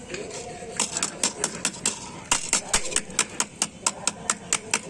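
Fresh tulsi and basak leaves being crushed into a paste: a fast run of sharp clacks from a hard tool striking a hard surface, about six a second, starting about a second in with a brief pause midway.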